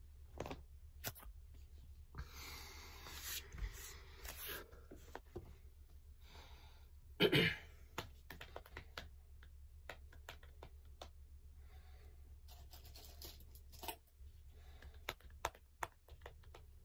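Breathing after push-ups, with the rustle of clothing and an exercise mat and scattered small clicks as the body shifts and hands rub the knees. One louder short burst comes about seven seconds in.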